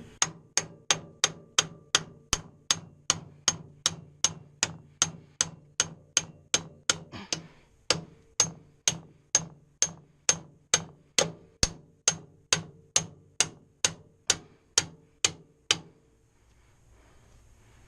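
Hammer blows on metal, struck at a steady pace of a little over two a second, each hit ringing briefly, stopping about sixteen seconds in.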